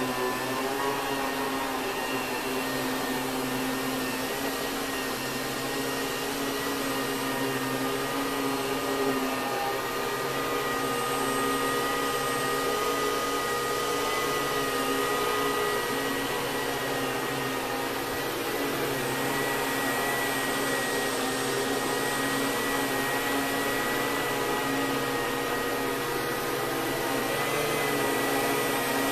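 Kenmore Progressive canister vacuum cleaner with its Lamb electric motor running steadily, giving an even whine with several held tones over a rushing of air.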